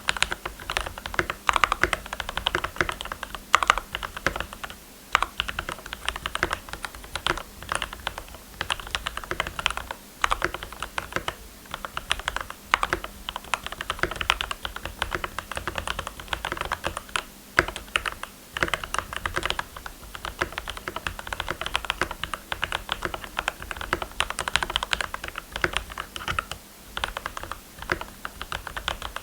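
Typing sound test of a GMMK Pro 75% mechanical keyboard with lubed Gateron Milky Yellow linear switches, switch films and Akko Cherry-profile PBT double-shot keycaps: a steady stream of fast, irregular keystrokes.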